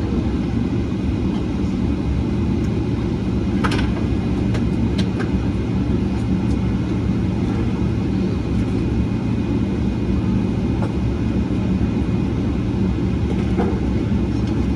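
Steady cabin rumble inside a Boeing 777-300ER, its engines running, with a couple of faint clicks about four and five seconds in.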